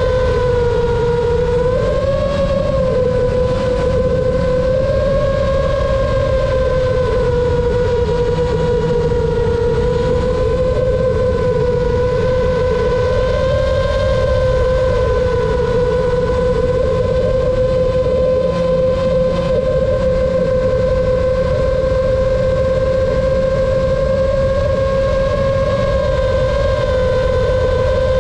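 FPV drone's brushless motors and propellers whining in flight, a steady whine that wavers slightly in pitch with throttle, over a low rushing noise.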